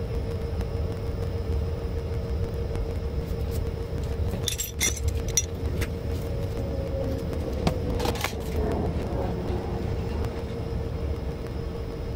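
Steady low rumble with a constant hum from rooftop mechanical equipment, with a few sharp clicks and knocks near the middle.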